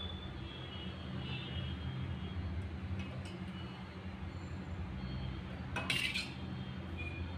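Steel ladle serving thick payesh from a steel pot into a glass bowl, with one sharp clink of the ladle against the pot about six seconds in, over a steady low hum.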